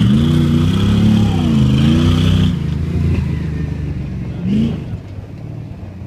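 Lifted square-body Chevy Suburban's engine revving hard as the truck drives off, its pitch jumping up and wavering for about two and a half seconds, then settling to a quieter run as it pulls away, with one short rev near the end.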